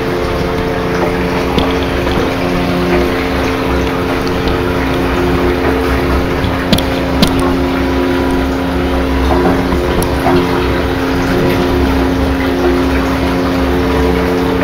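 Submersible sump pump, about a third horsepower, running steadily in a barrel of water: a motor hum over water churning as it circulates the water through its PVC pipe. Two faint clicks about seven seconds in.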